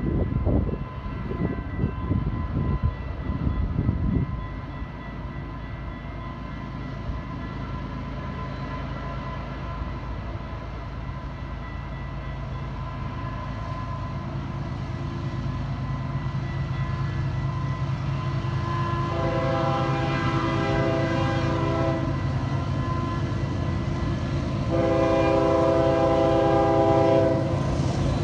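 Approaching Union Pacific diesel freight locomotives, the engine rumble growing steadily louder. The locomotive horn sounds two long blasts, one about two-thirds of the way in and one near the end. Gusty low noise is heard in the first few seconds.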